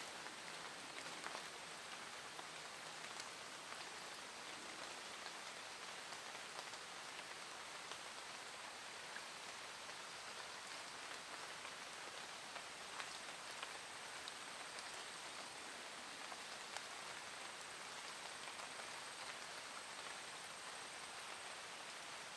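Faint, steady rain falling on leaves, with scattered small drop ticks.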